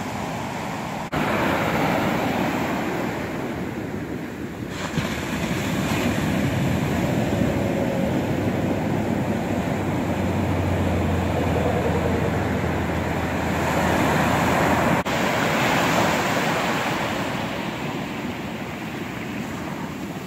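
Ocean surf breaking and washing up the beach, a continuous rushing wash that swells and ebbs, with some wind rumbling on the microphone.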